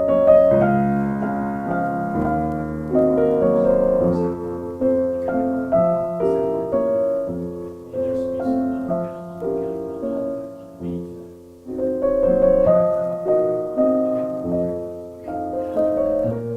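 Solo piano playing a slow, lyrical passage of struck notes and chords that ring and fade. The phrase eases off about eleven seconds in, and a new one begins.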